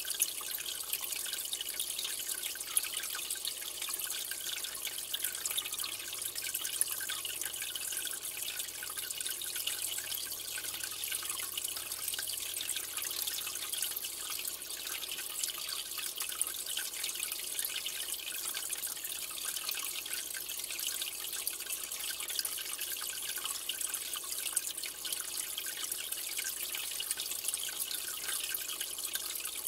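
Steady trickling and splashing of aquarium water, a constant hiss with fine drips and crackle in it.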